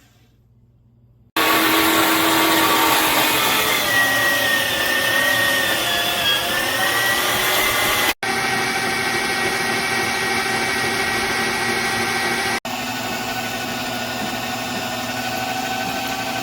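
Electric meat grinder's motor running with a steady mechanical whine, its pitch sagging slightly about five to six seconds in. The sound starts abruptly after about a second of near silence, and breaks off and restarts at once twice.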